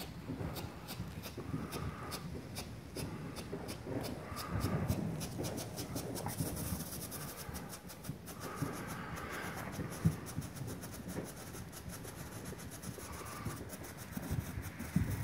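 Black Cat Storm Warning strobe firework burning on the ground, each flash giving a sharp little pop. The pops come in an uneven, rapid run of several a second.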